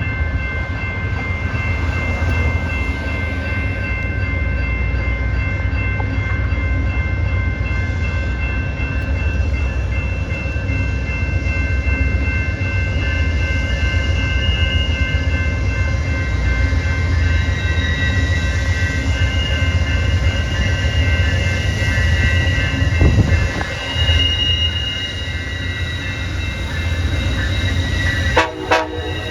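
Amtrak Empire Builder passenger train: a steady low rumble with several high steady tones ringing over it, and a short pitched burst near the end.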